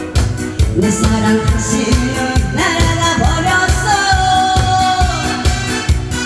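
A singer performing a song over an amplified backing track with a steady, fast beat. About two and a half seconds in, the voice slides up into a long held note that lasts roughly two and a half seconds.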